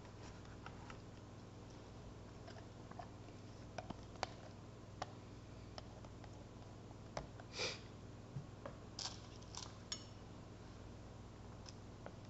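A spatula scraping the last of the lye solution out of a plastic pitcher into a bowl of oils: scattered soft scrapes and taps over a faint steady hum.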